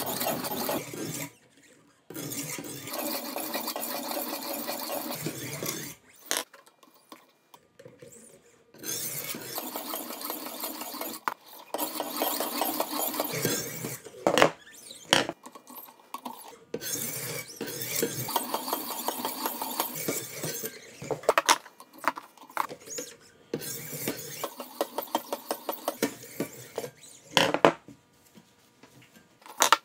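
Sharpening stones of a Wicked Edge guided knife sharpener stroked along a clamped steel knife blade: stretches of gritty scraping a second to a few seconds long, broken by short pauses. Several sharp clicks, as the stones knock against the blade or are set down, come about halfway through and again near the end.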